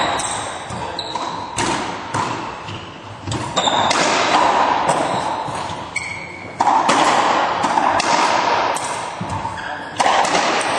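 Racquetball rally: the hollow rubber ball smacking off racquets and the court walls every second or few, each hit echoing around the enclosed court, with brief squeaks of court shoes on the hardwood floor.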